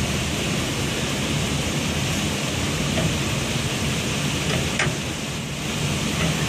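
Cooling tower running: a steady rushing like heavy rain or falling water, with a low hum underneath and a couple of faint clicks.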